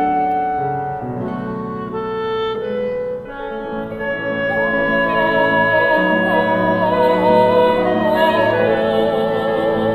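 Chamber music: clarinet over piano in held, lyrical notes. About halfway through, long notes with a wide vibrato come in and the music grows louder.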